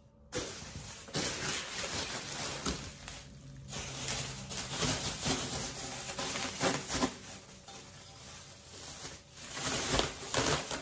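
Bubble wrap and plastic packing crinkling and rustling as a bubble-wrapped exhaust header is lifted out of a cardboard box, with sharper crackles here and there.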